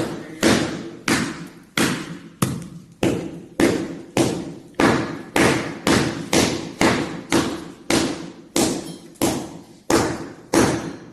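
Hammer blows struck at a steady pace, about two a second, each a sharp strike with a short ring, breaking in to reach a leaking water pipe.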